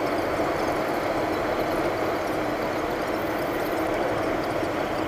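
Steady engine drone of an airliner heard from inside the cabin.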